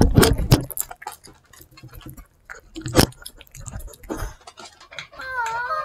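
Dog licking a ceramic plate clean close to the microphone: wet tongue clicks and smacks, dense in the first half-second, then scattered, with one sharper click about three seconds in. Near the end a short rising voiced sound begins.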